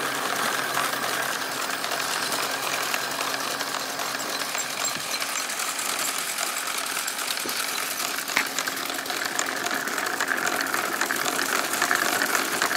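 Small Lego electric motors running steadily, driving the car wash's worm-gear conveyor and rubber-band-driven brushes, a continuous whirr with a fast, fine rattle of plastic gears.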